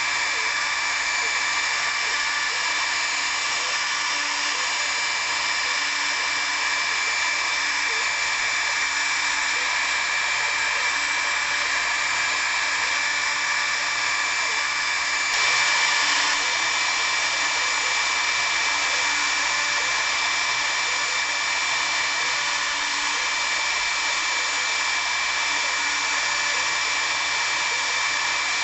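Hobby CNC router spindle running and milling wood: a steady machine noise with a constant high whine, briefly a little louder for about a second midway.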